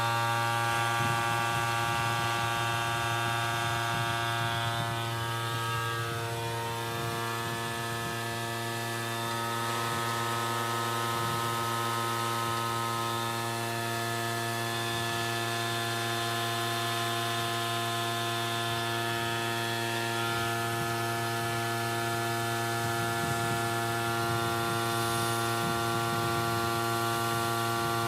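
CNC knee mill running its program with a 3/4-inch three-flute carbide end mill in aluminum: a steady machine hum made of several constant tones, with no change in pace.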